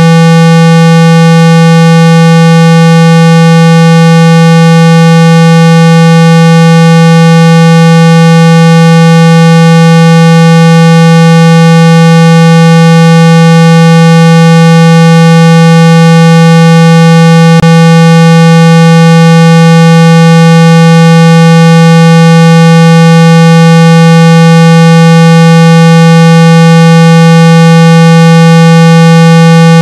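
A steady 165 Hz test tone played at near full volume, unchanging in pitch and carrying many overtones above it. It is a speaker-cleaning tone meant to shake dust and water out of a phone speaker. A single brief click sounds a little past halfway.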